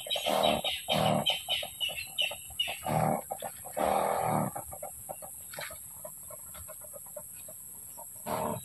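Chickens clucking in short bursts, busiest in the first half, with one more call near the end, over a steady high-pitched hiss.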